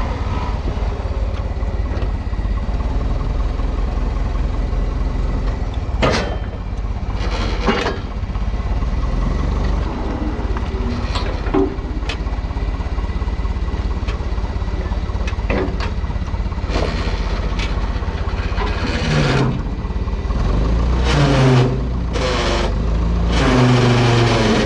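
Old forklift's engine running steadily, getting louder and working harder near the end as the hydraulics lift a heavy load. Several sharp clanks come along the way.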